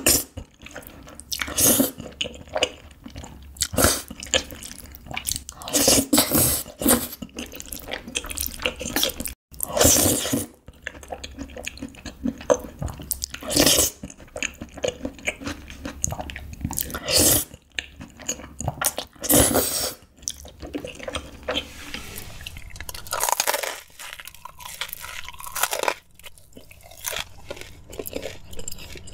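Close-miked slurping of long noodles in a creamy orange sauce, with chewing in between. There are about nine loud slurps, each lasting roughly a second.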